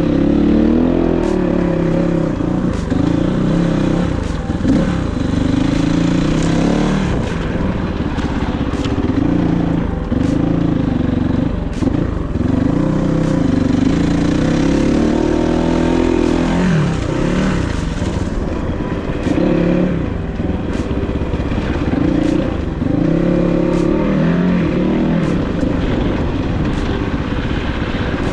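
Kovi 450i Pro enduro motorcycle engine under way, revving up and dropping back over and over, its pitch rising and falling every two to three seconds as the rider works the throttle and gears.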